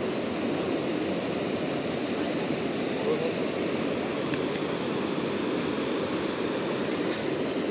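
Fast-flowing mountain river rushing, a steady, even roar of water that holds at the same level throughout.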